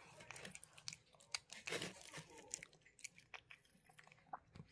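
A cat chewing and biting into tomato: faint, irregular wet crunches and mouth clicks.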